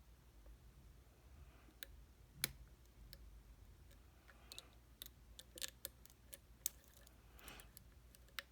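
Faint, irregular small metallic clicks and scrapes of lock picks and a tension wrench working the pins inside a challenge lock as it is picked.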